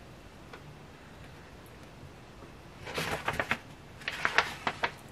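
Thick cardstock sheet-music covers being handled: two short bursts of crisp rustling and crackling, about three and four seconds in.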